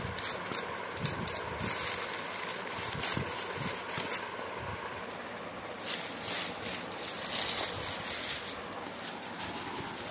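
Clear plastic wrapping crinkling and rustling as it is cut with scissors and pulled off by hand, with many short sharp crackles.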